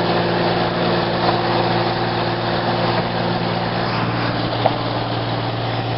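Car driving along, heard from inside the cabin: a steady low engine hum over tyre and road noise.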